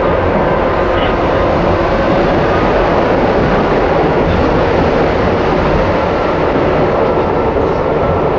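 Izuhakone Railway 1100 series electric train (former Seibu 701 series) running at speed, heard from inside the cab: a steady rumble of wheels and motors with a faint whine over it.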